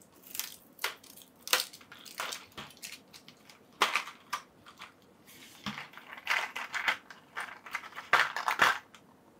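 Plastic packaging crinkling and rustling in irregular bursts as a sixth-scale figure's accessories are unpacked, with short sharp crackles among them.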